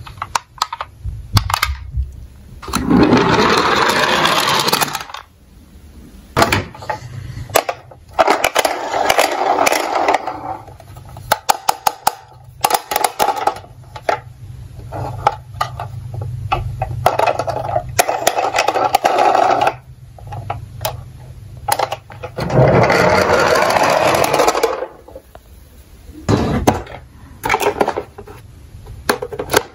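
Hard plastic toy police cars being handled and knocking against each other in a cardboard box: scattered clicks and knocks, and four stretches of about two seconds each of loud rasping noise.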